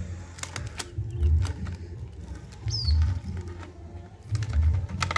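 Brown paper wrapping crinkling and tearing as it is pulled off a telescopic fishing rod, with scattered sharp rustles. A low thump repeats about every second and a half to two seconds underneath, and a short high chirp falls in pitch about two and a half seconds in.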